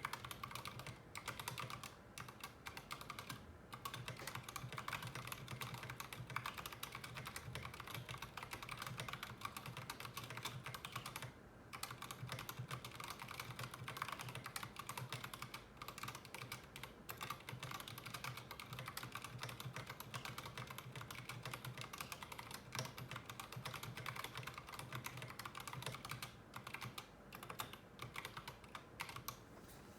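Continuous fast typing on a mechanical keyboard fitted with Durock T1 67g tactile switches: a steady stream of key clicks and keycap bottoming-out, with a brief pause about eleven seconds in.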